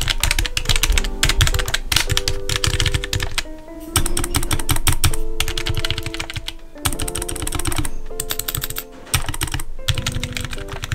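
Typing on a NuPhy NuType F1 mechanical keyboard with red linear switches: quick runs of key clicks with short pauses. The space bar and then the return key are struck and sound clearly different from the soft 'sukosuko' of the other keys, a clackier 'kacha-kacha' that the reviewer thinks probably comes from the stabilizers supporting those long keycaps.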